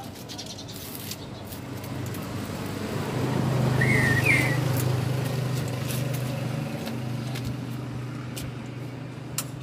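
A motor vehicle passing in the street, its engine hum swelling to a peak about four seconds in and then slowly fading. A brief high squeak sounds at the peak.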